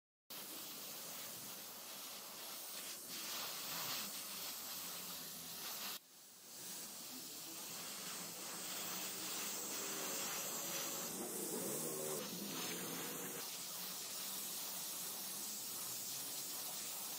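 Paint spray hissing steadily as grey primer goes onto small die-cast model car body parts; it breaks off about six seconds in and starts again.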